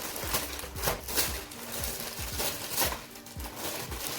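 Wrapping paper being torn and crinkled off a present in a quick run of rips.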